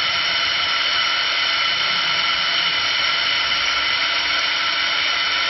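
Automatic two-blade wood lathe running as its rotating cutter shapes a wooden spindle: a steady high-pitched whine over an even hiss.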